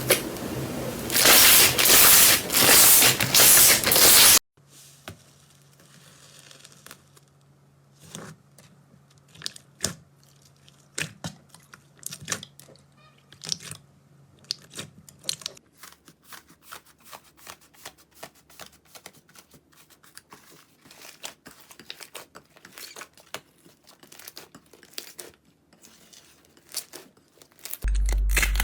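Slime being handled in close-up: loud, dense crackling for about the first four seconds, which stops abruptly, then a long quiet stretch of scattered soft pops and clicks. A steady low hum starts near the end.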